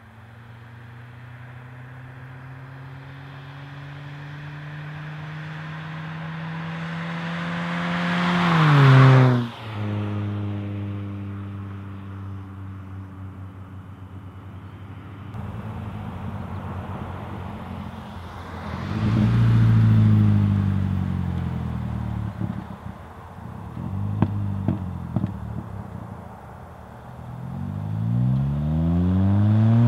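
2006 Mazda 3's 2.3-litre four-cylinder engine with a muffler-delete exhaust, accelerating through the gears. The engine note climbs steadily for about nine seconds to its loudest point and drops sharply at an upshift. Later the revs rise and fall again, with a run of sharp exhaust pops and crackles off the throttle, and it pulls hard once more near the end.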